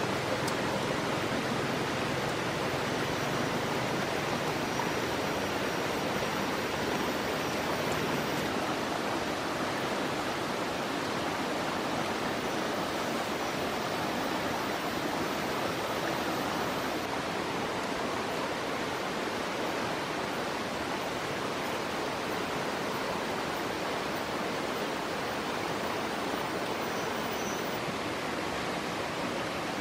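Steady, even rushing noise that does not change, like running water.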